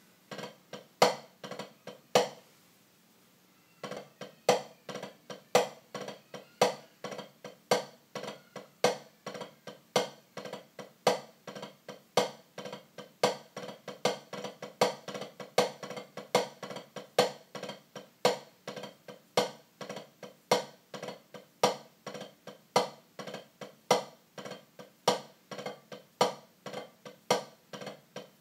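Wooden drumsticks played on a drum practice pad, working a rudiment with the Moeller technique. Loud accented strokes come about once a second with quieter taps in between. There is a short break about two seconds in, after which the pattern runs on steadily.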